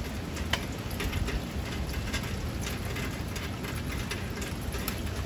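Steady rain and gusting wind from a hurricane's outer rain band, with scattered drops ticking sharply on nearby surfaces over a low wind rumble.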